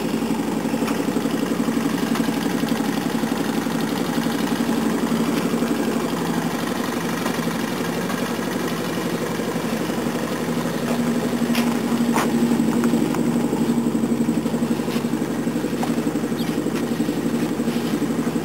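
An engine running steadily with a fast, even chugging, the kind of engine that drives a clay brick-making machine. A few light clicks sound around the middle.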